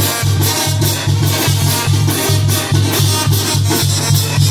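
Dance music playing loudly, with a heavy bass beat pulsing steadily about twice a second.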